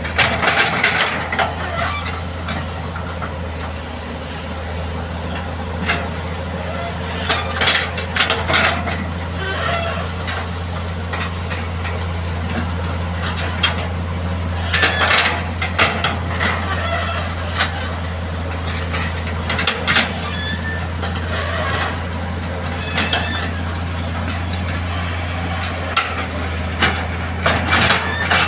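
Kobelco SK200 excavator digging: its diesel engine runs with a steady low drone, broken by irregular clanks and scrapes of metal as the bucket and tracks work.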